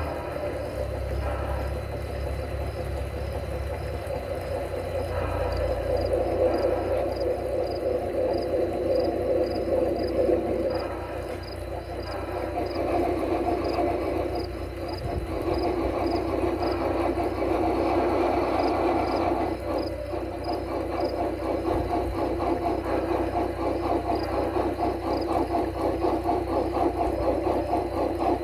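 Large-scale garden-railway model geared (Shay-type) steam locomotives running on track: a steady mechanical running sound with a fast rhythmic beat and light regular ticks, somewhat louder in the second half as a locomotive draws alongside.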